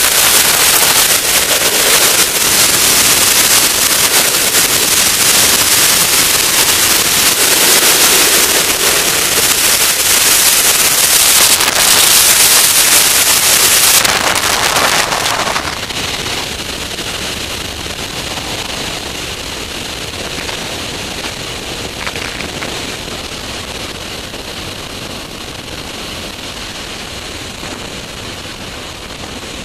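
Loud rushing airflow and wind buffeting on a camera mounted under the wing of an Avid light aircraft in low flight. The rush drops noticeably about halfway through and stays quieter as the plane comes down close to the grass.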